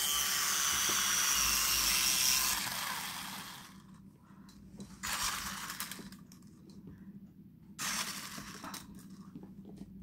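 Minion flying-helicopter toy's small electric motor and rotor whirring with a steady whine, which winds down and stops about three to four seconds in. Later come two short bursts of noise from the toy being handled.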